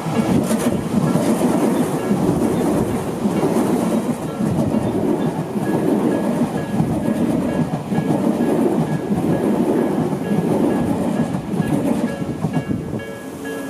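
A Tobu Tojo Line train passing over a level crossing at close range: a loud, steady rumble and clatter of wheels on rail that eases off near the end. The crossing's pulsing electronic warning bell keeps ringing underneath and comes through clearly again as the train noise drops.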